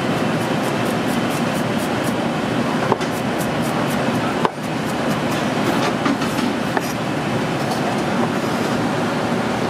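Chef's knife slicing garlic cloves on a plastic cutting board: quick irregular taps of the blade on the board, a few a second, with a couple of heavier knocks, over a steady rushing background noise.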